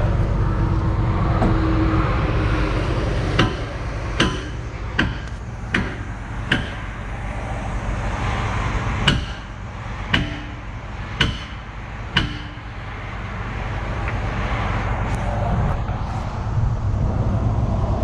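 John Deere excavator's diesel engine idling steadily, with a hammer striking steel about nine times in two runs of blows, each blow ringing briefly.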